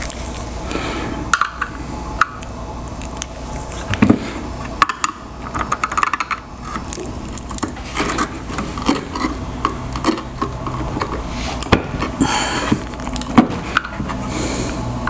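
Ryobi 40 V battery pack's plastic housing being handled and pried open with a screwdriver: irregular clicks, knocks and scrapes of plastic and metal, with a few sharper knocks against the bench.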